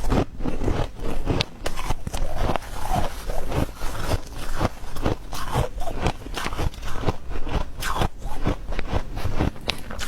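Close-miked biting and chewing of soft white ice: dense, irregular crisp crunches, several a second.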